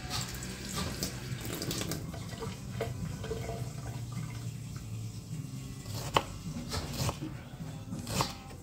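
Kitchen knife cutting on a wooden cutting board: a few sharp knocks from about six seconds in, over a steady hiss like running water.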